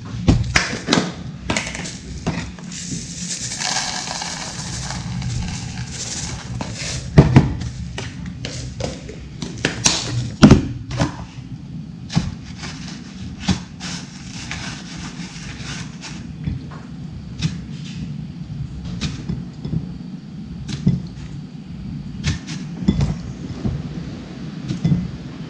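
Hands handling a plastic tub and a ceramic bowl on a kitchen counter while coating fish pieces in bread crumbs. Bread crumbs rustle into the tub about three seconds in, followed by scattered clicks and knocks of the containers and fish, the sharpest about seven and ten seconds in.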